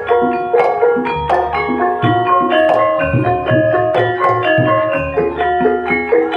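Javanese-style music: struck tuned metal percussion playing quick melodic notes over repeated low drum strokes, as in a gamelan ensemble with kendang.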